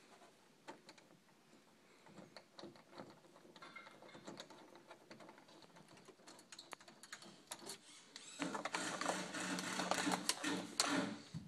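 Long machine screws for a Kwikset door handle being fitted and turned in by hand and with a screwdriver: scattered small metal clicks and ticks, getting busier and louder with scraping and rattling for about three seconds near the end.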